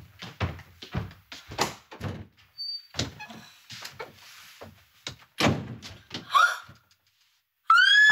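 A wooden door being handled with a string of knocks and thuds, then a short quiet. Near the end a woman lets out a loud, frightened scream.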